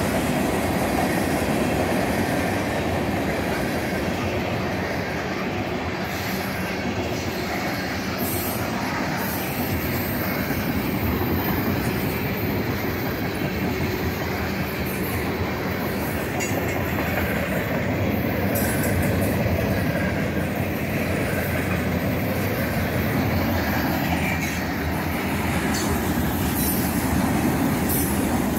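Freight train cars (tank cars and covered hoppers) rolling steadily past: the continuous rumble and clatter of steel wheels on the rails.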